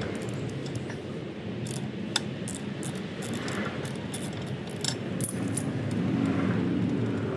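Scattered light metallic clicks and clinks, as of small hand tools or metal parts being handled, over a steady low rumble.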